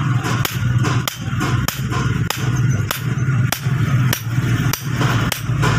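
Hand hammer striking a steel axe head held in tongs on an anvil: a steady run of sharp blows, about three a second.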